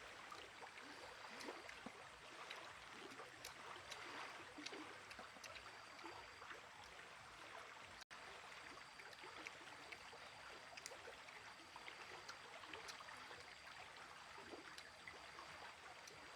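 Near silence: a faint steady hiss with scattered small ticks and a faint high tone that comes and goes.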